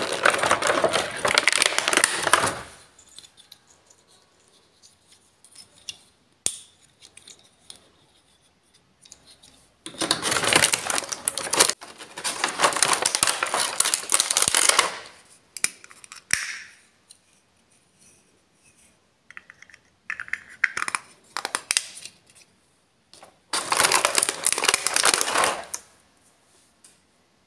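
Clear plastic blister-pack tray crinkling and crackling as small toy pieces are pried out of it. It comes in four bursts a few seconds long, with quiet gaps between.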